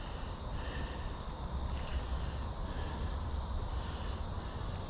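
Steady chirring of insects in summer vegetation, under a low, even rumble.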